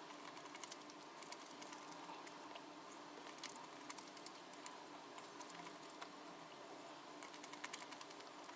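Faint, irregular light clicks and taps over a quiet steady hum.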